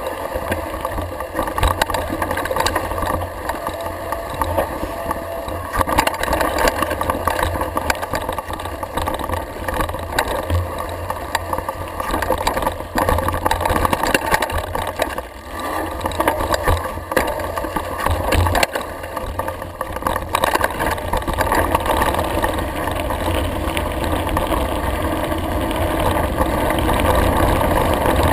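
Mountain bike riding downhill over a dirt trail and onto a gravel road, heard from a GoPro mounted on the bike: wind buffeting the microphone, tyres rolling over dirt and gravel, and constant rattling and knocking of the bike and camera mount over rough ground, getting louder near the end.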